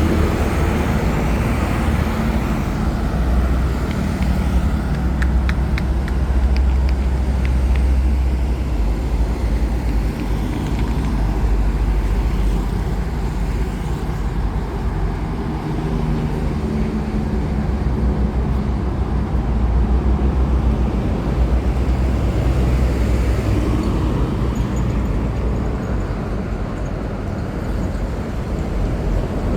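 Road traffic, with vehicle engines running as a steady low hum, and a few faint clicks about five to eight seconds in.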